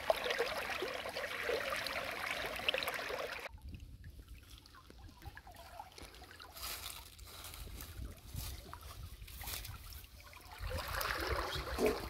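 Shallow running water in a small stream channel, a steady trickling and babbling that stops abruptly about three and a half seconds in. After that, fainter rustling with scattered light knocks, and a louder rush of noise returns near the end.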